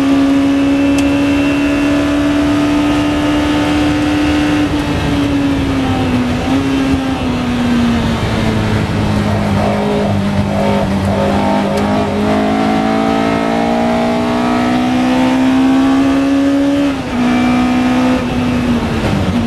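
Lola T292 sports-racing car's engine heard from the cockpit at racing speed. It holds high revs at first, then the revs fall as the driver lifts and shifts down under braking about five seconds in, and stay low and steady through a corner. The revs then rise again as it accelerates, with a brief break for a gear change a few seconds before the end and another fall in revs into braking at the very end.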